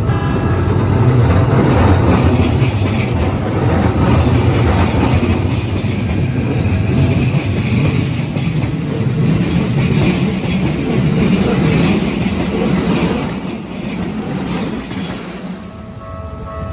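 Keikyu Line electric train passing over the level crossing, its wheels clacking over the rail joints, fading near the end. A level-crossing warning bell rings steadily underneath, coming through again as the train noise dies away.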